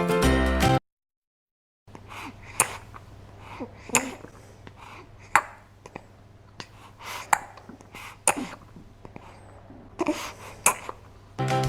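Scattered light taps, clicks and short rustles of small objects being handled, over a low steady hum. Children's music plays briefly at the start and returns just before the end.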